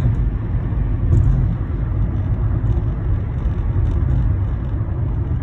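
Steady road noise inside a moving car's cabin: a continuous low rumble.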